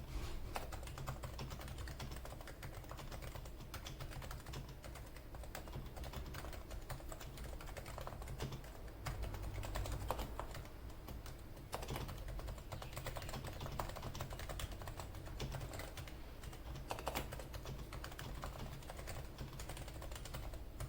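Continuous typing on a silenced Topre electro-capacitive keyboard (Realforce R2 PFU Limited Edition, 45 g silent switches): a steady stream of soft, muted keystrokes.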